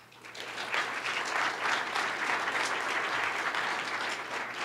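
Audience applauding, swelling within the first second and thinning out near the end.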